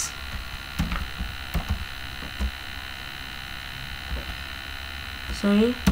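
Steady electrical mains hum with a whine, heard through the recording, with a few soft clicks in the first couple of seconds from typing on a computer keyboard.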